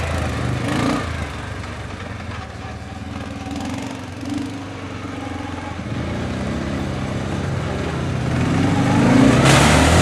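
ATV engine running, fainter in the middle of the stretch, then revving harder and rising in pitch as the quad powers into a mud hole. Near the end, a loud rush of spraying mud and wheelspin joins the engine.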